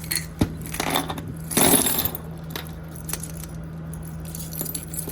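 Loose jewelry (earrings and rings) clinking and rattling as a hand sorts through a pile, in scattered clicks with a louder jumble of pieces about one and a half seconds in.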